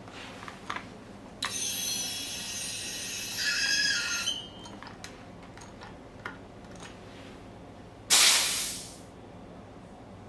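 Pressurised CO2 rushing from a large tank through a refill adapter into a SodaStream cylinder: a loud hiss with a squealing whistle that runs for about three seconds and then stops. A few seconds later a short, loud burst of hiss fades out within a second as gas is vented from the adapter's bleed screw.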